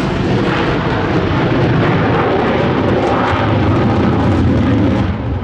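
Jet noise from an F/A-18F Super Hornet's twin General Electric F414 turbofan engines, loud and steady as the fighter flies past, easing off briefly near the end.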